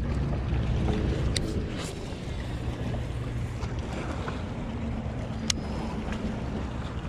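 Wind rumbling on the microphone over water lapping against shoreline rocks, with a few faint clicks.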